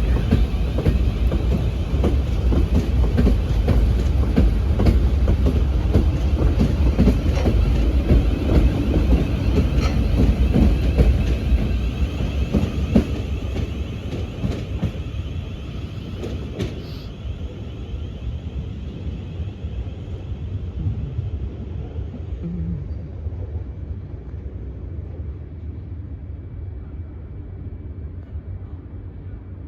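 Electric multiple-unit train pulling out, a low rumble with wheels clicking over rail joints, fading away steadily over the second half as it leaves.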